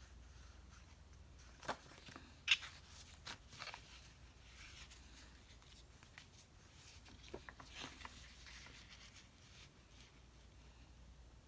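Sticker sheets and planner pages being handled: faint paper rustling with scattered light taps and crinkles, the sharpest about two and a half seconds in.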